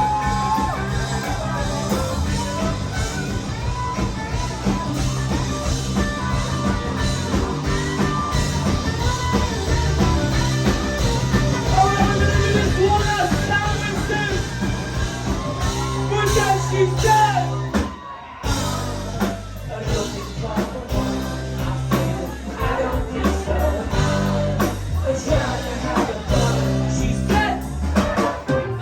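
Live rock band playing, with guitars, bass guitar and drum kit. The band cuts out briefly about two-thirds of the way through, then comes back in.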